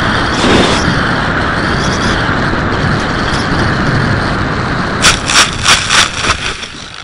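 Bixler foam plane's electric motor whine and wind rush on its onboard camera, then about five sharp knocks in quick succession near the end as the plane touches down and bounces through the grass. The noise fades right after.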